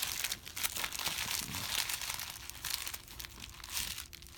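Wrapper of a 2017 Allen & Ginter baseball card pack crinkling, with some tearing, as it is opened and handled.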